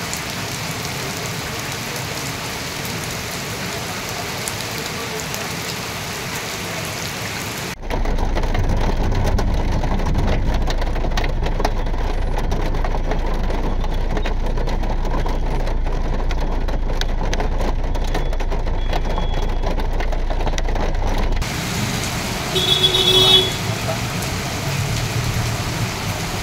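Heavy rain falling, steady and hissing, with a cut about eight seconds in to a louder, closer, crackling downpour with a low rumble. Near the end the rain is quieter again, with a brief pitched sound.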